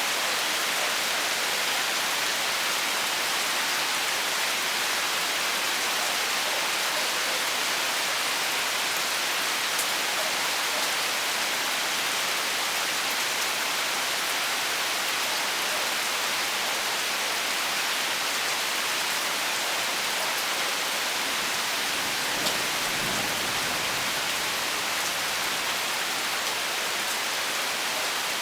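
Rain falling steadily, an even hiss of drops on surfaces, with a brief faint low rumble about 23 seconds in.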